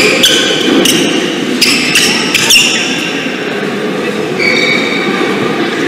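Sports-hall ambience: court shoes squeaking on the floor and sharp knocks, packed into the first two and a half seconds with a few more squeaks later, over a steady hall murmur.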